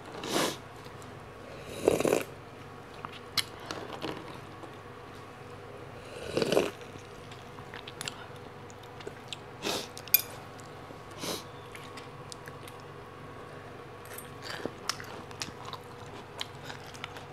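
Close-up eating sounds of spicy Thai salad: three crunchy bites among quieter chewing, with scattered light clicks of a metal spoon and fork.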